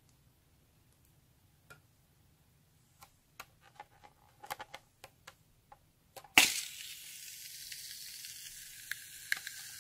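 A few light clicks and taps, then, about six seconds in, a sudden steady hiss of shaving foam spraying out for about four seconds.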